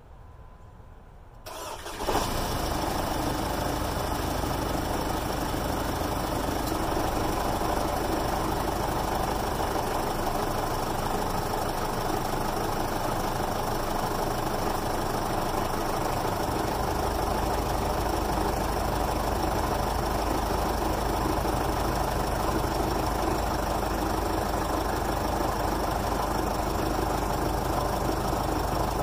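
2005 Jeep Liberty CRD's 2.8-litre VM Motori four-cylinder turbodiesel starting from cold after sitting unused for six years. It fires about two seconds in and settles into a steady idle.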